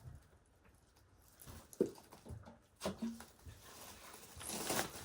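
A dog barking a few short, separate barks, with a rising rush of noise near the end.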